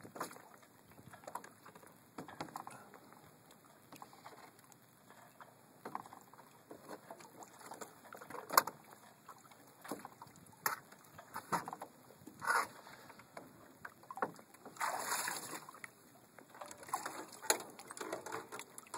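Irregular knocks, clicks and short rushes of noise from a canoe and its rope line being handled alongside a sailboat's stern. The loudest knock comes about eight and a half seconds in, and a longer rush of noise follows a few seconds later.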